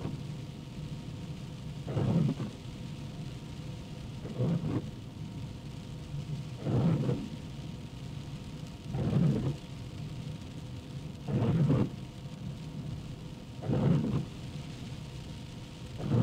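Car windshield wipers sweeping at a steady pace, one swish about every two and a third seconds, over a constant hiss of rain and road noise.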